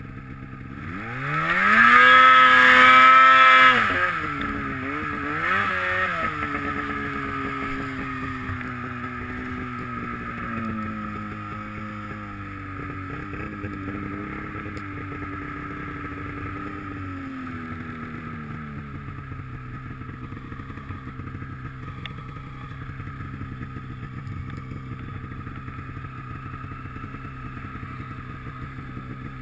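Snowmobile engine revving up hard about a second in and held high for a couple of seconds, then blipped twice. The revs then fall away gradually and it settles to a steady, even low run from about twenty seconds in.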